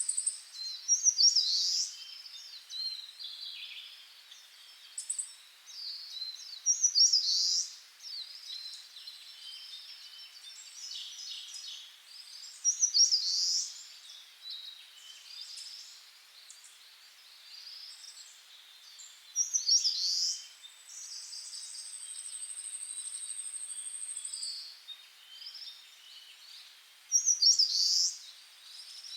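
Birds singing, a loud song phrase coming back about every six seconds with softer chirps in between. A thin, steady high tone holds for about four seconds just past the middle.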